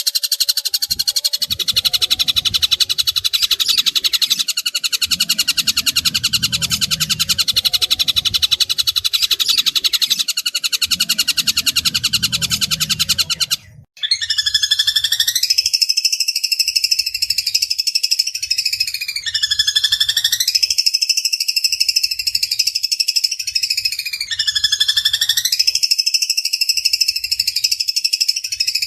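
Long-tailed shrike (pentet) song: for the first half a dense, very fast harsh chatter. After a brief break about halfway, a harsh call phrase with dipping pitch repeats about every five seconds.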